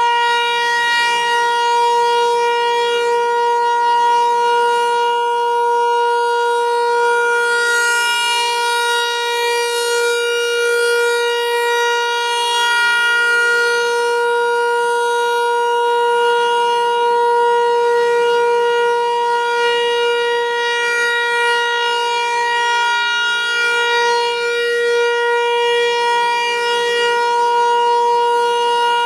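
Federal Signal 508-128 tornado warning siren sounding during a test, holding a steady high pitch with only slight swells in level.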